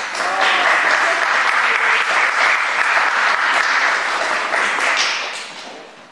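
Audience applauding, a dense, steady clapping that dies away about five seconds in.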